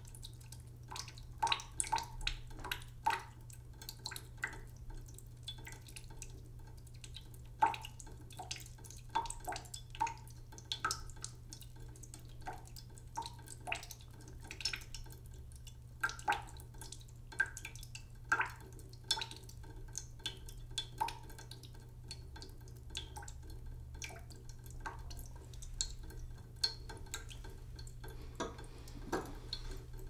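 Water dripping slowly from a tap into a cooking pot in a sink. The drops land irregularly, often about one or two a second, each plinking with a short ring.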